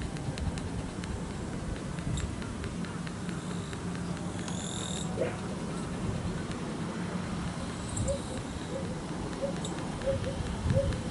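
Shiba Inu puppy held on its back, giving a few small squeaks and grunts, with a quick run of them near the end, over a steady low rumble.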